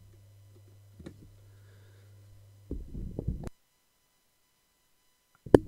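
Low steady hum with a few computer keyboard key clicks. About three and a half seconds in, the sound cuts to dead silence, which ends in a sharp click.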